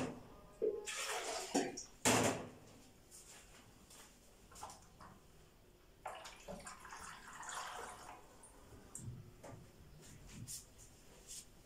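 Boiling water poured from a cup into a metal baking tray around clay pots of yogurt, making a hot water bath to keep the yogurt warm while it sets. The pouring is faint. A few sharp knocks of dishware come in the first couple of seconds.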